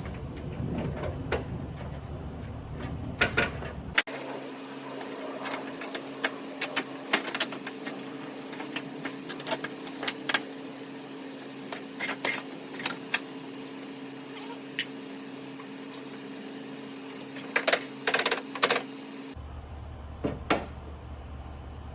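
Irregular clicks and light knocks of the plastic grille and its hardware being handled and pushed onto the hood studs, with a quick cluster of clicks near the end. A steady low hum runs under the clicks through the middle.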